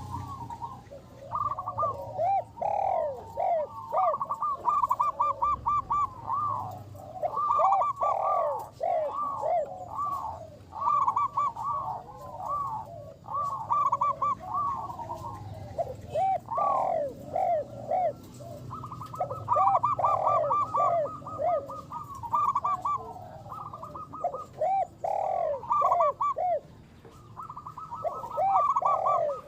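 Zebra doves (perkutut) cooing in repeated phrases of quick, rolling coo notes with short pauses between, the phrases often overlapping at a higher and a lower pitch.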